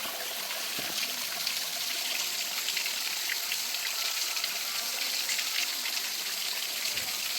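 Mountain waterfall: water rushing and splashing in a steady hiss.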